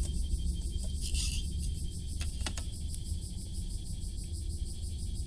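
Wood fire crackling in a small stainless-steel fire stove, with a short hiss about a second in and a few sharp pops a little later, over a steady low rumble.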